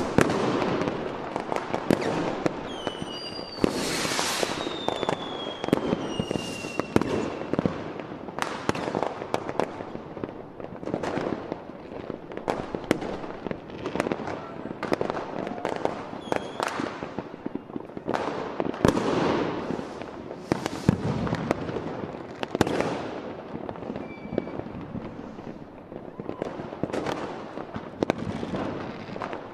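Fireworks going off: a dense, irregular run of bangs and crackling from rockets and aerial shells bursting, with a couple of falling whistles a few seconds in.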